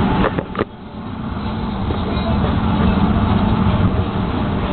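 Interior running noise of an MBTA Green Line light-rail vehicle rolling along a station platform: a steady low rumble, with two sharp clicks about half a second in and a brief dip before the rumble builds again.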